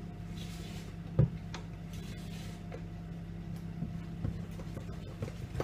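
A spatula knocking and scraping against a mixing bowl while stirring thick batter: scattered ticks, with one sharp knock about a second in, over a steady low hum.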